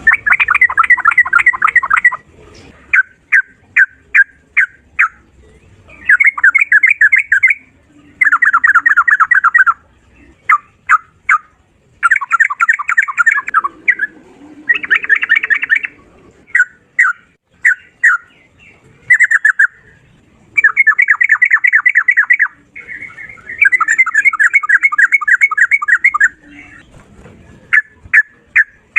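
Sooty-headed bulbul (trucukan) singing loudly in rapid-fire 'ropel' runs: trills of quickly repeated notes lasting a second or two, alternating with short, sharp single notes.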